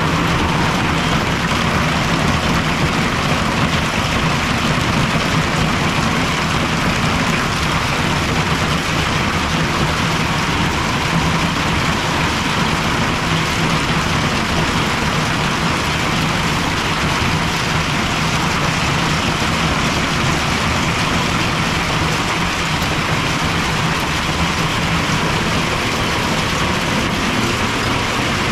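Hail mixed with rain pelting a wooden deck and yard, a steady, dense patter that does not let up.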